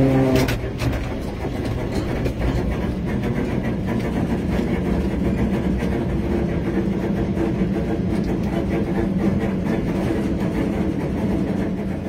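Vintage electric tram running, heard from the driver's platform: a steady rumble of wheels on rail with a low motor hum and many small rattles and clicks. A falling whine dies away about half a second in.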